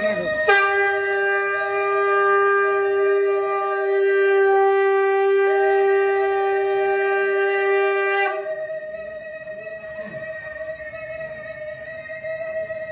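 Conch shells (shankha) blown in long held notes. A lower, louder one starts about half a second in and stops sharply after about 8 seconds, while a higher one holds on throughout.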